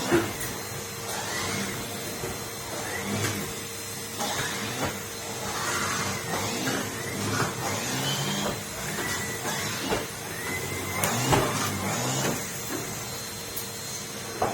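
Numatic Henry canister vacuum cleaner running with a steady hum, its note rising and falling about once a second.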